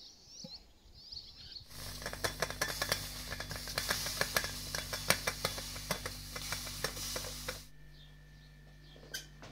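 Faint bird chirps at first. Then, from about two seconds in, an enamel kettle on a gas burner gives a loud hiss full of dense crackling and popping, the sound of water at a hard boil. It cuts off suddenly near the end, leaving a low hum and one light clatter.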